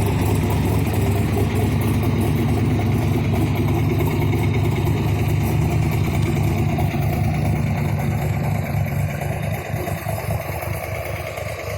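1967 Corvette's 427 big-block V8 (435 hp, three two-barrel carburettors) idling steadily with a deep, even exhaust note, getting quieter from about eight seconds in.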